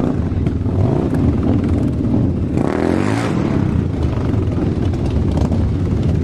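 Motorcycle engine running steadily, swelling briefly about halfway through.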